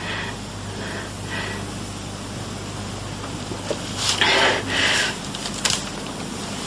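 Steady low mains hum and hiss of an old television recording, with two short, soft breathy or rustling sounds about four and five seconds in.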